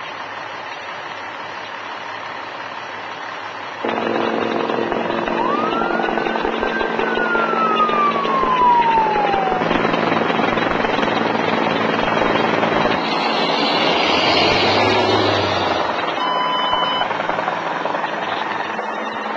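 Chicago Fire Department rescue helicopter hovering overhead, a steady drone that comes in suddenly about four seconds in. A siren wail rises and then falls once in the middle, and there is a short beep near the end.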